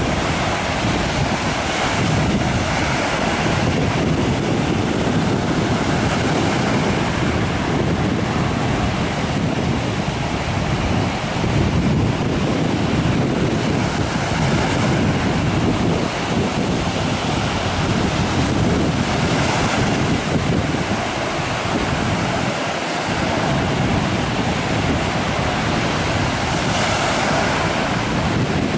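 Small sea waves breaking and washing up a sandy beach in a steady wash of surf, with wind buffeting the microphone in low rumbles.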